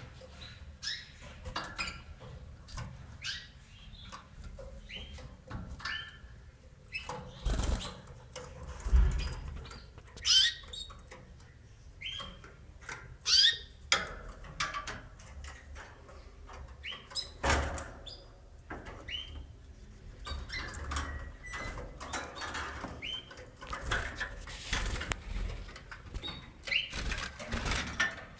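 Canaries giving short chirps that slide in pitch, mixed with wing flutters and scattered sharp clicks and knocks.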